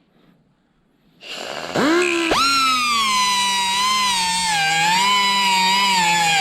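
A handheld power cutting tool starts up about two seconds in, its whine climbing quickly to speed, then runs steadily with the pitch sagging and recovering as it cuts the ball ends off the motorcycle's brake and clutch levers.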